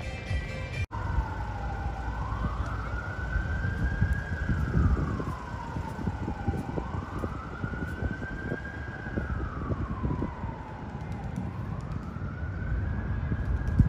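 Emergency vehicle siren on a slow wail, rising and falling about every four to five seconds, over a low rumble.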